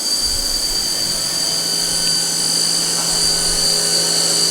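Spindle of a Haas Super Mini Mill 2 CNC vertical mill running at steady high speed during a machine cycle: a steady high whine, with a lower hum joining about one and a half seconds in.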